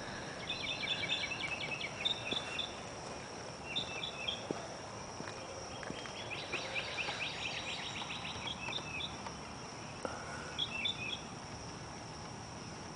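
A songbird singing in short phrases of rapid chirping trills, several phrases a few seconds apart, over a steady high-pitched drone of insects.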